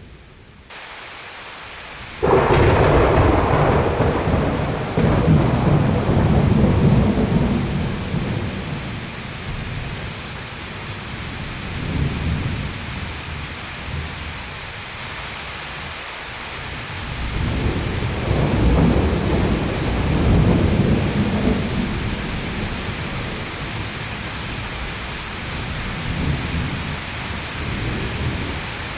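Thunderstorm: a sudden loud thunderclap about two seconds in that rolls on as a low rumble for several seconds, a smaller rumble midway, and another long roll of thunder about two-thirds through, over a steady hiss of heavy rain.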